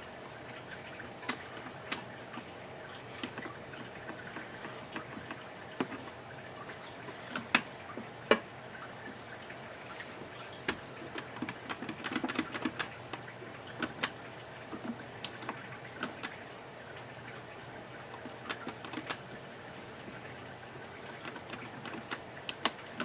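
Scattered light clicks and taps of a small tool and fingers working in the metal mechanism of an opened Technics SL-D30 turntable while grease is applied, with a few sharper clicks about a third of the way in.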